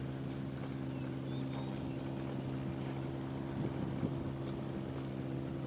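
A steady high-pitched insect trill with a slight flicker, over a constant low hum.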